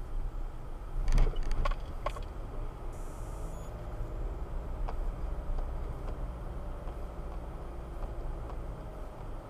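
Car driving: a steady low rumble of engine and road, with a few sharp knocks and rattles between one and two seconds in.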